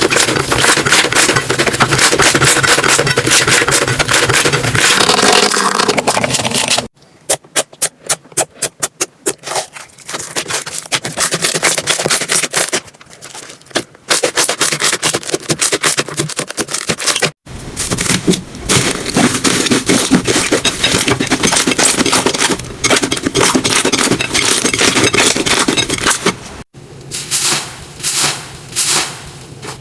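Slime being squeezed, pressed and poked by hand, close to the microphone: wet crackling and squishing in several separate takes cut together. Partway in comes a run of quick, regular pops, about five a second.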